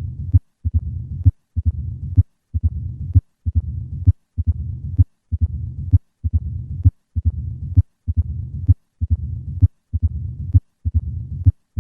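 Heart sounds of mitral stenosis at roughly one beat a second. Each cycle has sharp heart-sound clicks, and a low-pitched rumbling diastolic murmur fills the long pause between beats, followed by a short silent gap.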